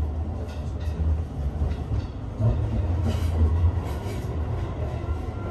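Seibu 30000 series electric train running along the line: a steady low rumble of wheels on rails, with a few faint clicks.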